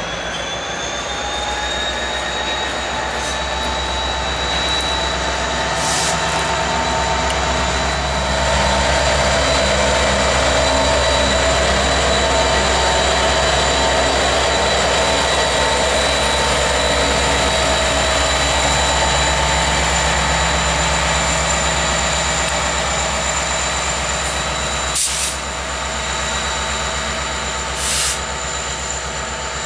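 Canadian National EMD SD70 diesel locomotive running as it moves past with tank cars. Its engine makes a steady low rumble with a steady high whine over it, and it grows louder as it passes close, about a third of the way in. There are brief clicks near the end.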